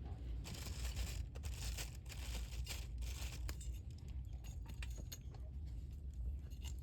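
Wood campfire crackling, with scattered sharp pops and a rustling hiss during the first few seconds, over a steady low rumble.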